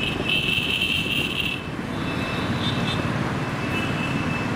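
Steady road and traffic noise from vehicles moving along a road, with a thin high whine over the first second and a half.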